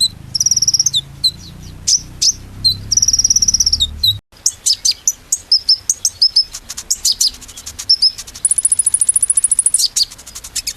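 Small songbirds singing fast, high-pitched song: rapid chirps and short trills, with a long, even high trill near the end. The song breaks off for an instant about four seconds in and then goes on.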